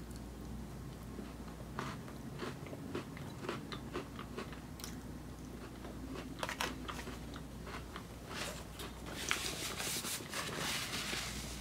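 Crunchy bites and chewing of a crispy fudge-covered Nutter Butter peanut butter cookie, with short crisp crunches scattered throughout and a denser stretch of crackling in the last few seconds.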